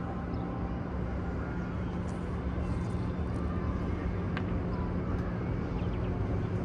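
Steady background murmur and rumble of a large crowd of worshippers, with a constant low hum underneath.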